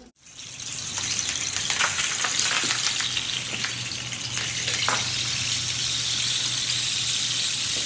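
Rain stick being played: beads trickling down through the tube in a steady rain-like hiss with small scattered clicks, swelling over the first second and then holding even.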